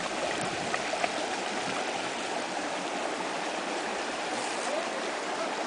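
Creek water flowing steadily, an even rush of moving water, with a couple of faint clicks about a second in.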